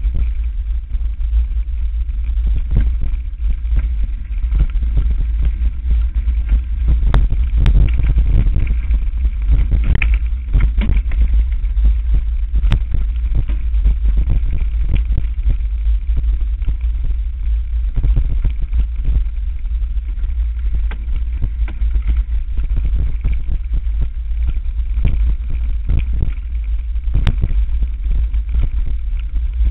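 Mountain bike descending a dirt forest trail at speed: steady wind rumble on the bike-mounted camera's microphone, with frequent clattering knocks and rattles as the bike hits bumps.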